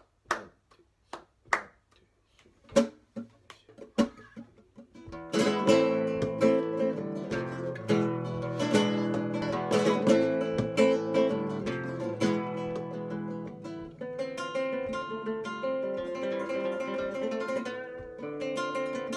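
Sharp hand claps (palmas) keeping time for about five seconds, then a flamenco guitar comes in playing fandangos.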